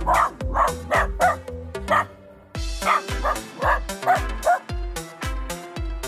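A dog barking in repeated short calls over background music with a steady beat.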